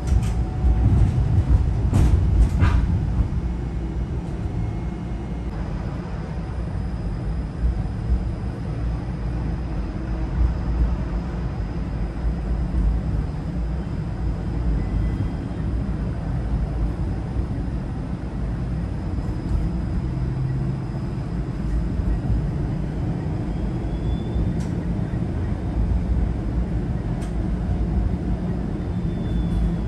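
Inside a low-floor streetcar running along its tracks: a steady low rumble, with a few clicks and knocks in the first few seconds and a thin high whine through most of it.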